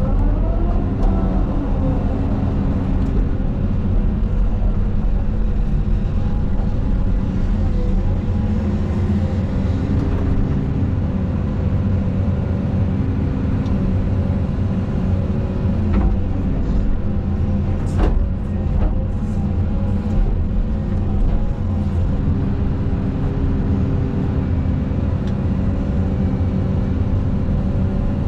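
Caterpillar 320 hydraulic excavator's diesel engine running steadily as the machine works, with two sharp knocks a couple of seconds apart past the middle.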